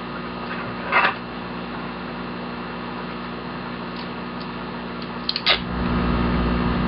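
Steady low hum with a few short clicks and knocks from handling the plastic bucket and a roll of gaff tape; a sharper knock about a second in and another near five and a half seconds, after which the hum gets louder.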